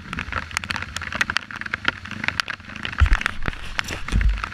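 Dirt bike engines running on a muddy trail, with a steady crackle of sharp clicks. About three seconds in, and again near the end, there are strong low thumps from the camera being handled.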